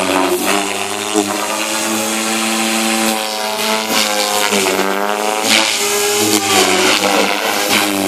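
Devil 420 radio-controlled helicopter in 3D aerobatic flight: a steady, loud buzz from the rotor and motor, its pitch dipping and rising as it manoeuvres, most deeply about five seconds in.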